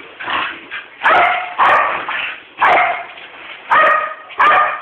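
Corgis barking: a run of sharp barks, five loud ones about a second apart with softer yips between them.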